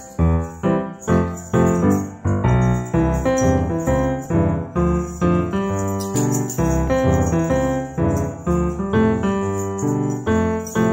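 Background music played on piano, a light melody of struck notes in a steady rhythm.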